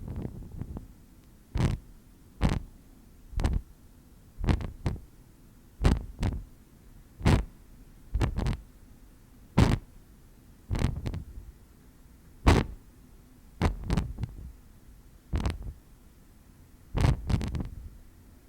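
Wind-whip whooshes: something swung fast through the air again and again, each a short swish, about one a second, some coming in quick pairs.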